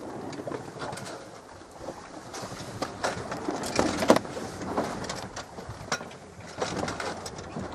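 Sea water washing and splashing along the hull of a small sailboat under way: an irregular rushing hiss with short splashes.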